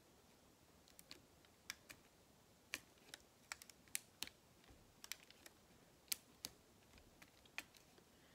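Faint, irregular light ticks of a diamond-painting drill pen tapping round drills onto the adhesive canvas, about two or three a second.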